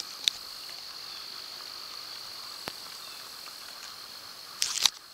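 Crickets chirring, a steady high-pitched trill, with a short burst of noise, a rustle or knock, near the end.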